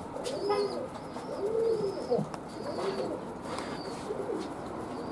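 Domestic pigeons cooing, a run of low, rounded coos one after another, with faint high chirps above them.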